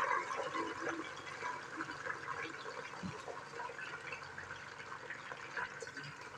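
Raw chicken pieces sizzling and crackling in hot oil with lightly browned sliced onions. It is loudest at the start, just after the meat goes in, then settles to a steadier, quieter sizzle. There is a single low knock about three seconds in.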